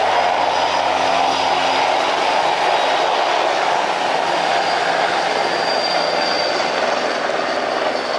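Large twin-turbine military helicopter of the Super Puma family flying low, its engines and rotors making a loud, steady rushing noise with a faint high turbine whine.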